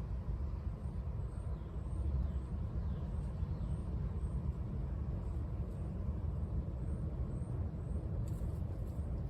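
Outdoor ambience: a steady low rumble, with faint high chirps repeating about every half second through most of it.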